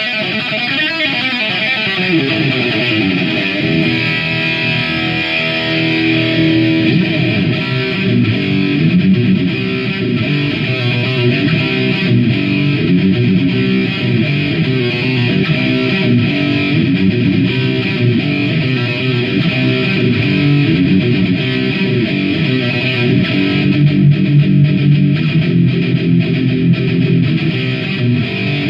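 Distorted electric guitar playing a riff of shifting notes, opening with a sliding note that drops in pitch.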